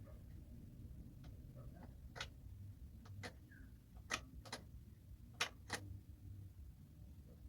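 Handling noise: about six sharp clicks and taps at uneven intervals over a low hum, the loudest pair a little past the middle.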